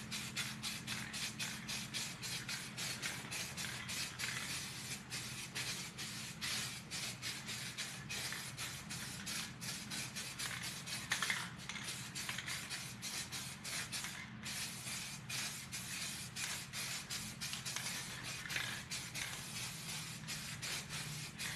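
Aerosol can of SEM bumper coating spraying in many short hissing passes, with one brief break about two-thirds of the way through, over a low steady hum.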